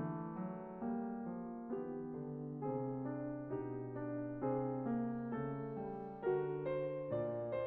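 Background piano music, an even run of notes over a held bass.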